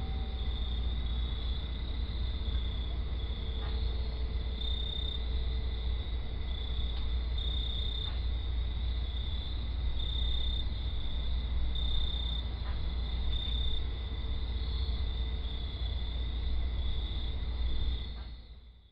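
Crickets chirping steadily in a night ambience over a low, even rumble, fading out near the end.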